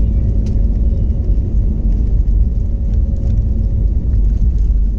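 Airbus A321neo jet airliner heard from inside the cabin: a steady, loud low rumble of engines and airflow with a faint steady hum.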